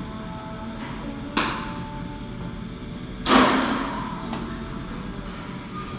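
Two sharp thuds from a baseball throwing drill, a lighter one about a second and a half in and a louder one about two seconds later that rings out briefly.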